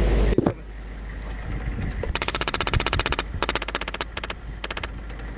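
An air-powered (HPA) airsoft gun firing on full auto, in four bursts of rapid, evenly spaced clicking shots: one longer burst of over a second, then three shorter ones. A single knock comes about half a second in, just before the background drops quieter.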